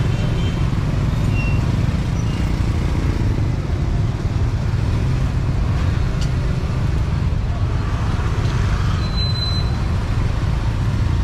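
Steady rumble of street traffic. A short high-pitched tone sounds about nine seconds in.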